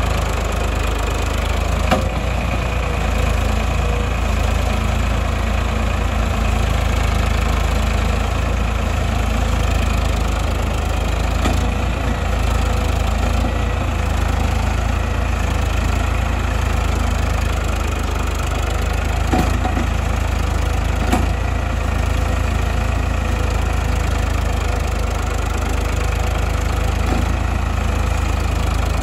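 Farmtrac 60 EPI tractor's three-cylinder diesel engine running steadily at low speed while hauling a loaded sugarcane trolley, with an occasional light knock.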